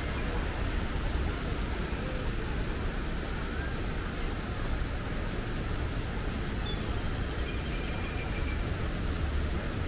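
Steady outdoor rumble and hiss with no breaks, with a few faint high chirps about halfway through and again later.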